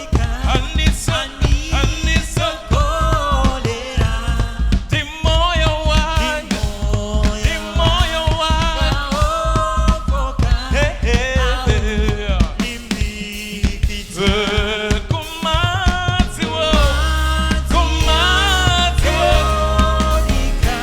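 Live worship band music: voices singing a gospel melody over drum kit and bass. The bass gets heavier and more sustained near the end.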